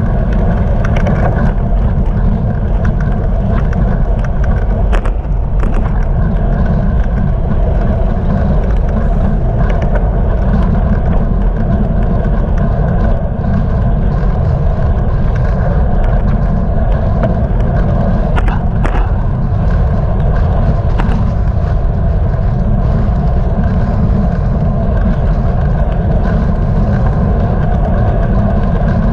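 Steady wind and road rumble on a bicycle-mounted GoPro's microphone while riding over asphalt, loudest in the low end, with a few sharp clicks from the bike or mount.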